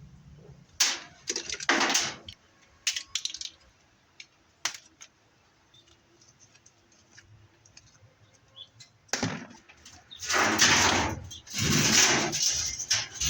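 Metal parts of a washing machine clinking and rattling as it is taken apart by hand: a few sharp clinks in the first few seconds, then two longer scraping clatters of about a second each near the end.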